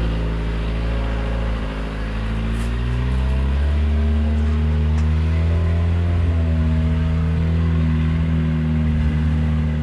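Off-road vehicle engine running steadily under load. Its pitch dips slightly and then rises a little about three to four seconds in.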